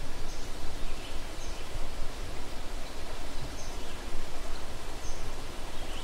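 Forest stream water rushing steadily over a shallow riffle. A faint high bird call repeats every one to two seconds.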